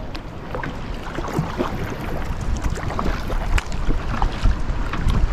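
Kayak paddle dipping and splashing in small, irregular strokes, with water lapping at the hull and wind rumbling on the microphone.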